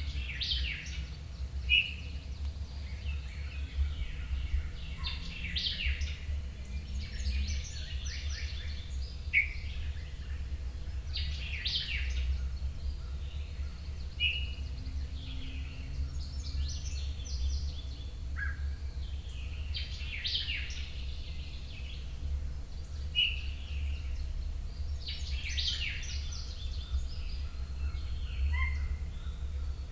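Songbirds singing in the woods, short chirps and trills every second or two, over a steady low rumble.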